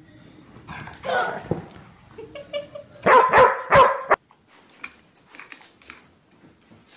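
A dog barking, the loudest a run of three barks about three seconds in that cuts off abruptly; a thump comes a little before.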